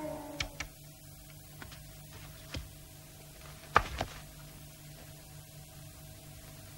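Background music fading out in the first half-second, then a steady low hum with a few scattered knocks and clicks of objects being handled; the loudest pair comes about four seconds in.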